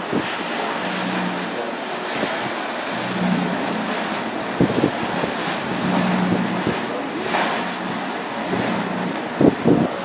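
Wind buffeting the microphone over the rush of choppy sea and a boat's wake, with a low engine hum that comes and goes. A few harder gusts thump the microphone about halfway through and near the end.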